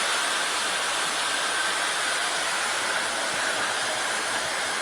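Vehicle lift lowering the car, a steady hiss that starts suddenly just before and holds level.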